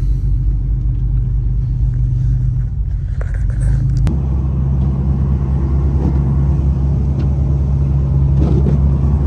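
Truck engine and road noise while driving: a steady low drone. A sharp click comes about four seconds in, and the drone's pitch pattern shifts after it.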